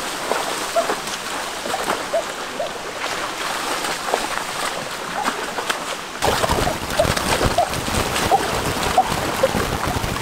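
Shallow rocky stream running and splashing as a person wades through it and gropes in the water by hand. About six seconds in the water sound becomes deeper and a little louder.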